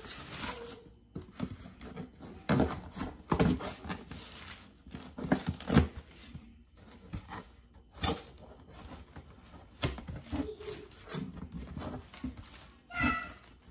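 Parcel packaging being torn open and handled: irregular rips and crinkling of paper or plastic wrap, with the sharpest tears about halfway through. A short high whine comes near the end.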